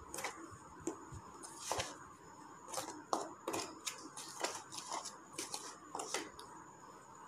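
Metal spoon stirring dry flour mix in a plastic bowl: faint, irregular scrapes and clicks of the spoon against the bowl.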